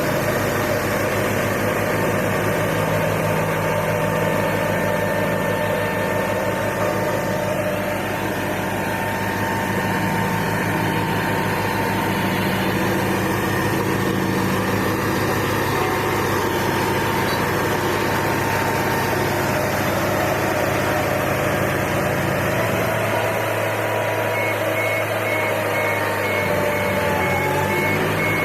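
HAMM road roller's engine running steadily, with a fast low pulsing underneath that drops away a little after twenty seconds in.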